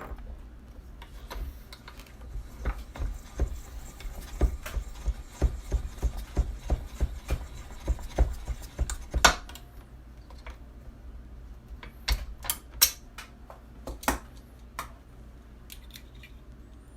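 Lyman case trimmer trimming brass rifle cases: a run of irregular clicks and small metallic knocks as a case is snapped into the holder and the cutter worked against its mouth, then a few sharper, spaced-out clicks.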